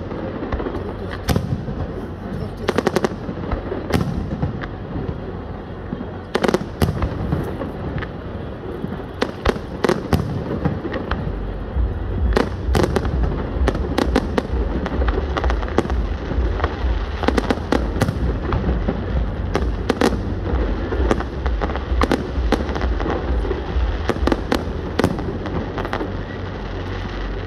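Aerial fireworks display: shells bursting in a rapid, irregular run of sharp bangs and crackles. A deep low rumble sits underneath from about halfway through.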